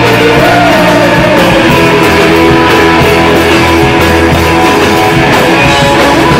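Rock band playing live and loud: electric guitars over bass and drums, with the full mix filling the room.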